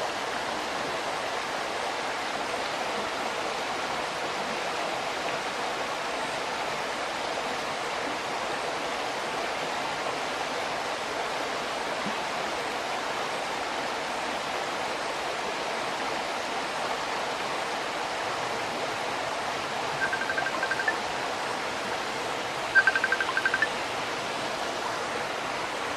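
Steady rushing of a waterfall. Near the end, two short runs of rapid high-pitched beeps sound over it, the second louder.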